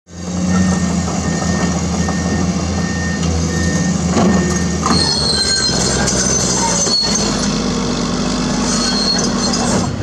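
Diesel engines of Komatsu PC210 excavators running steadily. About halfway through, a Caterpillar D6R crawler dozer takes over: its diesel engine running, with intermittent high-pitched squeals from its steel tracks.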